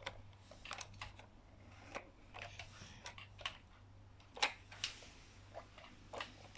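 Irregular light clicks and taps of a plastic toy being handled. The loudest is a pair about four and a half seconds in.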